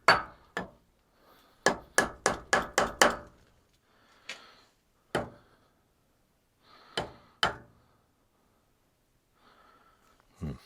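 Rubber mallet tapping a milling machine vise to nudge it into square on the table: two taps, a quick run of about six, then single taps spaced a second or more apart.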